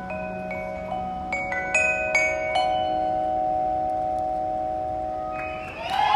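Mallet keyboards of a percussion ensemble strike a few soft, separate notes that ring on and blend into a long, slowly fading final chord. Applause and cheering break out near the end.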